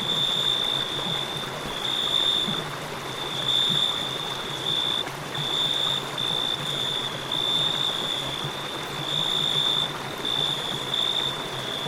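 River water flowing steadily, with crickets chirping over it in a high, continuous trill that breaks off and resumes every second or so.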